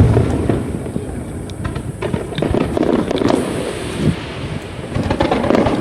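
Aerial fireworks shells bursting: a loud boom at the start rolls on into a rumble, with sharp pops and crackles scattered through.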